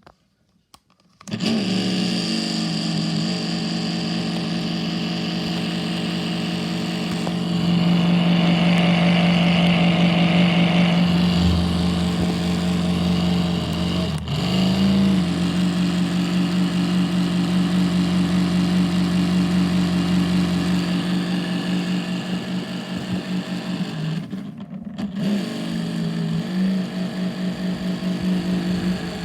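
Prinetti desk fan running on bad bearings: a loud, steady, pitched drone that starts about a second in and breaks off briefly twice before restarting.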